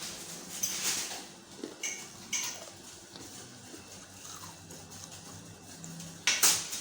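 Kitchen handling sounds: scattered light clicks and knocks, with a louder pair of knocks near the end.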